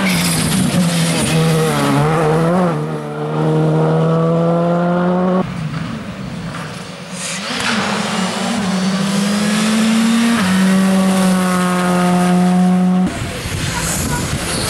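Škoda Fabia R5 rally cars' turbocharged four-cylinder engines at full throttle as they pass one after another. The pitch climbs as each car accelerates and then holds high, and the sound breaks off sharply between cars about a third of the way in and again near the end.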